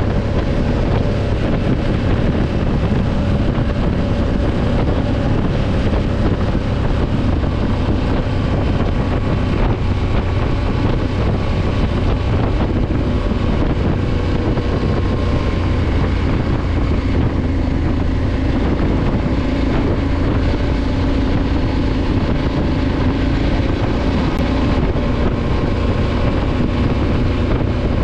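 Adventure motorcycle engine running at a steady cruise, with wind noise over the microphone.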